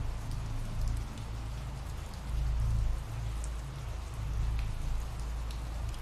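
Steady rain, a constant hiss with scattered small drop patters, over a low rumble that swells about two seconds in.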